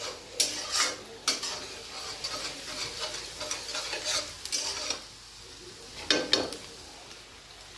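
A spatula stirring and scraping around a kadai in irregular strokes over the sizzle of onion, garlic and green chilli frying in ghee on high flame.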